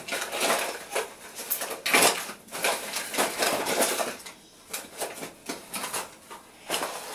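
Small objects being handled: an irregular run of light clicks and knocks, easing off for a moment about four seconds in before starting again.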